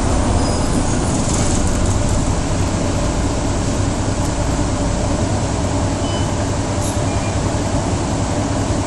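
Mercedes-Benz O405G articulated bus heard from inside the passenger cabin, running steadily: a continuous low engine and drivetrain drone with road noise.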